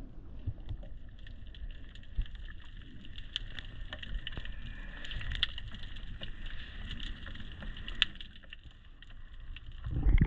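Wind rumbling on the microphone and water lapping and splashing against a boat's hull, over a steady high hiss full of small crackling ticks.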